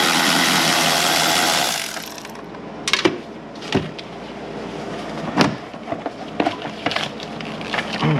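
A power tool runs for about two seconds and stops, then come a series of sharp clicks and knocks from plastic parts of the air filter housing being unclipped and handled.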